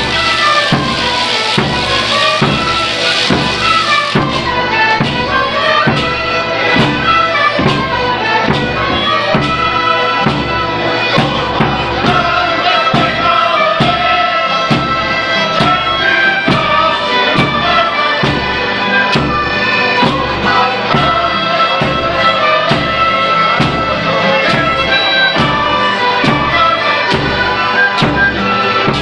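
Andean band music accompanying the Qhapaq Negro dance: a melody that rises and falls over a steady drum beat of about two beats a second.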